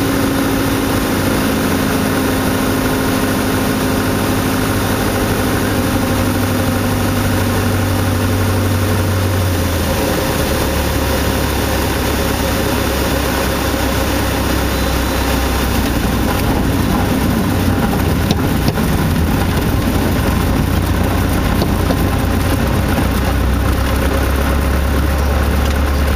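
Cessna 152's Lycoming O-235 four-cylinder engine and propeller droning, heard inside the cockpit. About ten seconds in the drone drops to a lower pitch as power comes back for landing. From about sixteen seconds in, knocks and rumble come in as the wheels touch down and roll on the snow-covered runway.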